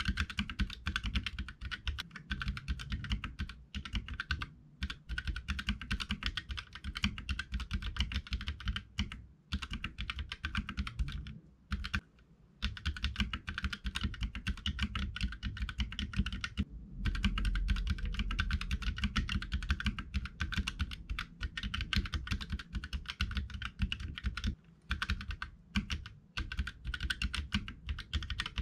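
Fast, continuous typing on a Keychron K3 low-profile mechanical keyboard with Gateron Red linear switches: a dense run of keystroke clicks with a few short pauses.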